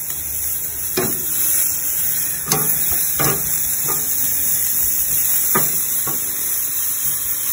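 Ribeye and beef tenderloin steaks sizzling on a hot grill grate, a steady loud hiss, with several sharp clicks of metal tongs against the grate as the steaks are turned.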